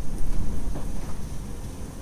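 A rough low rumble over a faint steady sizzle of bread slices frying in ghee in a pan.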